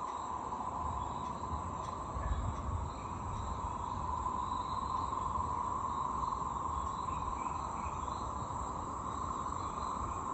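Dense chorus of many frogs calling together at a pond, a steady unbroken high trilling din with no pauses.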